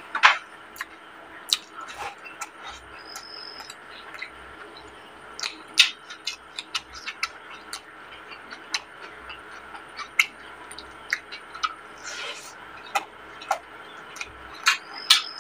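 Close-up eating sounds of rice and chicken curry eaten by hand: irregular wet mouth smacks and clicks while chewing, with fingers squishing and mixing rice on a plate.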